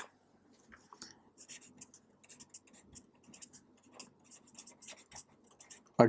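Marker pen writing a word on a white writing surface: faint, quick scratchy strokes, one after another.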